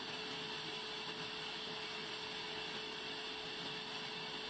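Large vertical band saw running steadily as its blade rips lengthwise through a log slab pushed through by hand, a constant whine with one steady tone in it.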